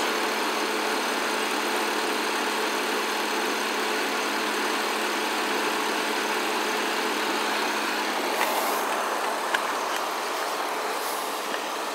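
Steady engine idle hum with a constant hiss over it, unchanging throughout.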